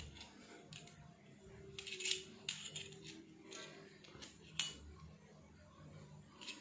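Steel and aluminium machine parts and a digital caliper handled by hand: a few sharp metallic clicks and clinks, the loudest about two seconds in and again past the middle, over a faint steady hum.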